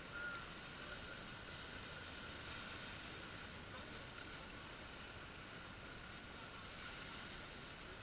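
Faint, steady wash of sea surf splashing and draining among concrete breakwater blocks. A brief high chirp sounds about a quarter of a second in.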